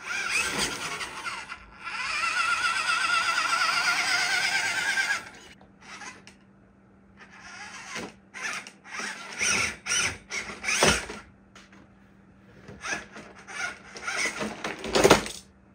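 Whine of a small 1/16-scale RC Toyota Land Cruiser 80's electric motor and gearbox as it crawls over obstacles: one unbroken run of about five seconds with a wavering pitch, then short bursts of throttle. A few knocks come between the bursts, the loudest one near the end.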